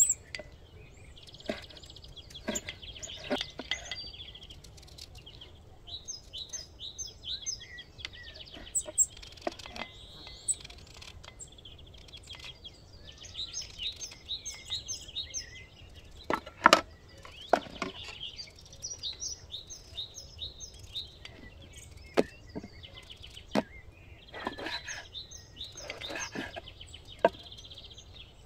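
Small birds chirping in short, rapidly repeated phrases, with scattered sharp knocks and clicks from knife work on a wooden cutting board. The loudest knock comes a little past halfway.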